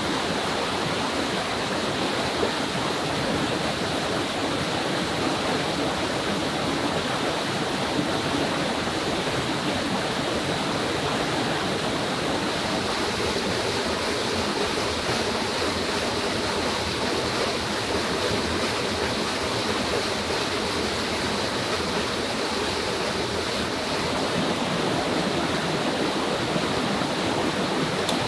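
Steady rushing of a shallow rainforest stream flowing over rocks, with a thin steady high tone running through it.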